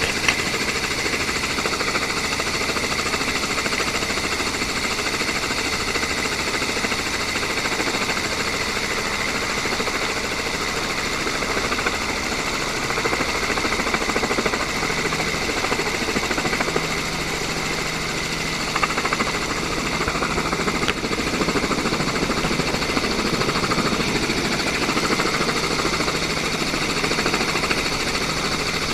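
Steady mechanical engine noise with a continuous high whine, its low pitch shifting slightly now and then.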